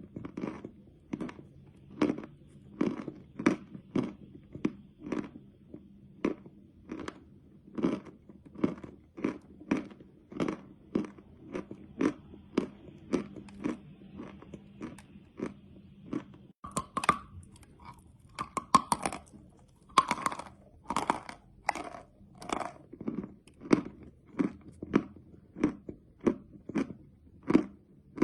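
Close-up chewing of crunchy edible chalk, steady chomps at about two a second. A little past the middle come several sharper, crisper crunches, like fresh bites into a piece, before the steady chewing resumes.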